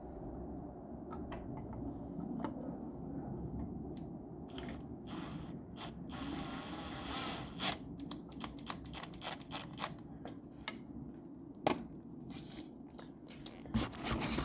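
Milwaukee M18 cordless drill with a flexible extension driving at a screw: the motor runs for about three seconds near the middle with a thin high whine, followed by a run of sharp clicks and ratcheting rattles from the tool and bit, over a steady low hum.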